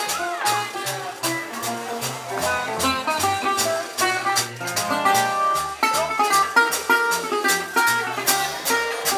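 Swing jazz band playing a lively tune: guitar chords over a stepping bass line, with a steady drum beat.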